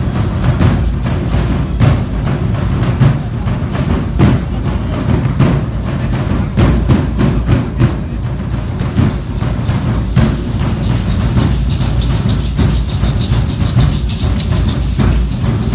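Live Matachines dance music: a drum beating a steady rhythm under a violin, with the dancers' hand rattles shaking, the rattling louder from about eleven seconds in as a dancer passes close.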